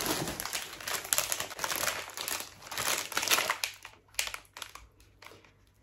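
Paper snack-bar packaging crinkling as it is handled, dense for about three and a half seconds and then thinning to a few separate crackles.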